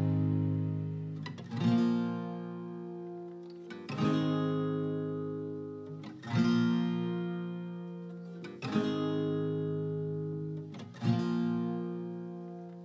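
Background music: an acoustic guitar strumming slow chords, one about every two and a half seconds, each left to ring and fade.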